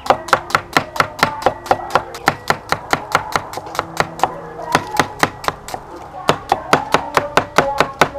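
A cleaver slicing an onion on a round wooden chopping block: quick, even knocks of the blade on the wood, about four a second, with a short pause a little past the middle.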